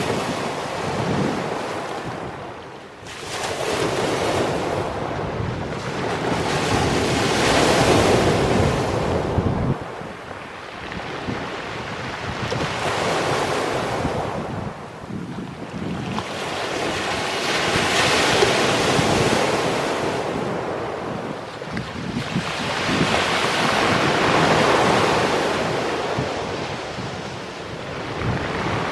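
Small sea waves breaking on a pebble beach and washing back over the stones, the surf swelling and fading every few seconds.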